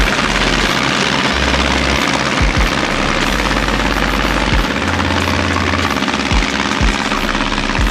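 Wind buffeting the microphone: a loud, steady rushing noise with irregular low thumps.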